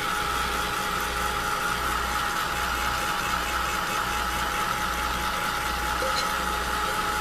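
A small electric heat tool's fan runs steadily with a constant whine and a low throb that pulses about once a second, drying a thin coat of paint.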